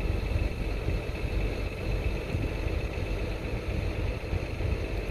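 Steady low rumble of an engine idling, with no distinct knocks or clicks over it.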